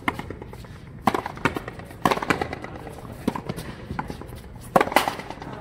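Frontenis rally: a rubber ball struck by strung rackets and smacking off the concrete front wall, a string of sharp pops about a second apart. The loudest pair comes close together near the end.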